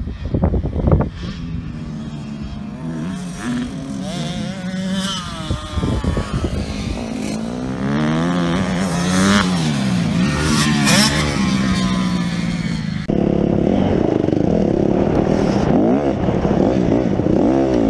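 Motocross dirt bike engines revving up and down as the bikes ride the track, the pitch climbing and dropping again and again with throttle and gear changes. About 13 s in the sound cuts to a single closer, louder engine heard from on the bike itself, running hard at a steadier pitch.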